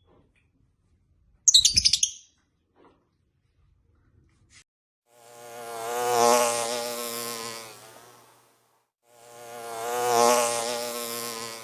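A flying insect buzzing, twice. Each buzz swells up and fades away over about three seconds, as if the insect flies close past the microphone and away. A short rattle of quick clicks comes about a second and a half in.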